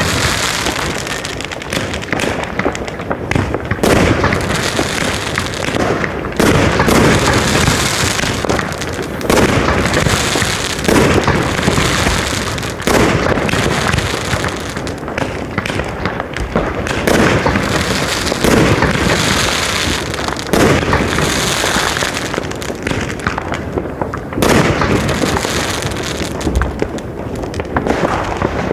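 Consumer fireworks cakes firing: a fast, continuous run of shots and bangs with crackling.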